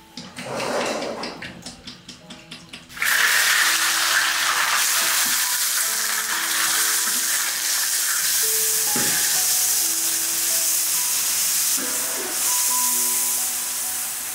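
Hot oil sizzling hard as food goes into it. The frying starts suddenly about three seconds in and holds steady, with light background music underneath.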